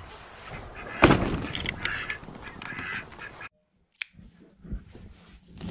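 A thump about a second in, followed by hens clucking and squawking; after a cut, straw from a bale rustling and crackling as it is handled.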